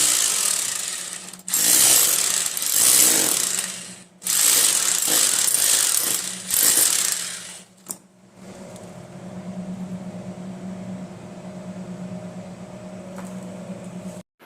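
Hammer drill drilling in loud bursts for about eight seconds, pausing briefly twice, then giving way to a quieter steady hum.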